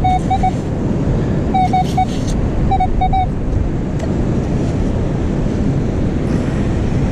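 Strong wind buffeting the microphone, with short pitched beeps from a Minelab Manticore metal detector sounding on a buried target in groups of two or three over the first three seconds.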